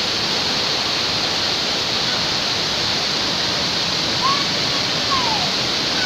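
Waterfall crashing into its pool, a steady rush of falling water. Two brief faint high sliding notes sound over it about four and five seconds in.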